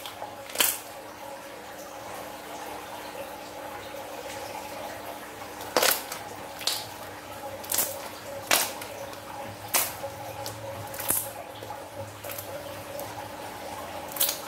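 Slime being kneaded and squeezed by hand, giving short sharp sticky pops and clicks every second or two. A faint steady hum runs underneath.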